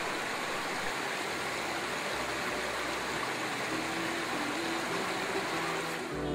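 Mountain torrent rushing over rocks in small cascades: a steady, even rush of water.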